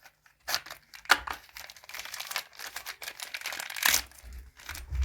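Rustling and light clicks from small engine parts being handled, with a louder scrape a little under four seconds in.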